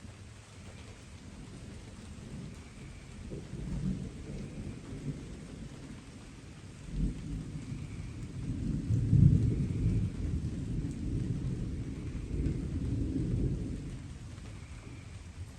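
Distant thunder rumbling over steady light rain. The deep rumble builds a few seconds in, is loudest about halfway through, and dies away near the end.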